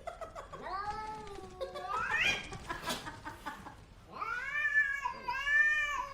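A cat yowling: three long drawn-out meows, the first rising in pitch at its end, the last two run together near the end.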